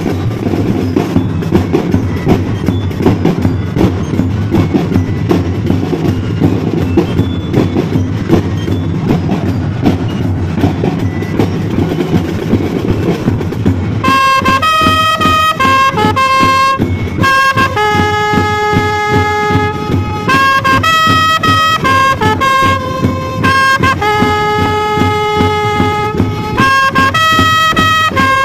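Drum and bugle corps playing: a fast drum cadence with bass drum, then about halfway through the bugles come in with a melody of held notes over the drums.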